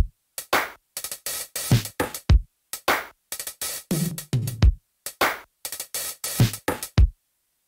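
Background music: a sparse electronic drum-machine beat of sharp hits and low kick thumps, stopping about seven seconds in.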